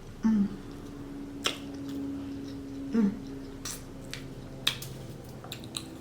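Close-miked chewing of a crispy croissant breakfast sandwich: scattered sharp mouth clicks and smacks, with two short "mm" hums, one right at the start and one about three seconds in.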